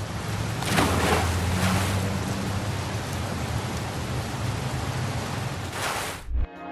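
Heavy rain pouring down in a steady hiss, with a low hum underneath; it cuts off suddenly near the end.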